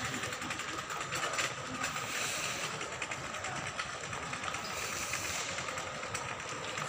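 Shopping-mall background noise: a steady even hum with a faint high tone running through it and light rapid ticking, with no loud event.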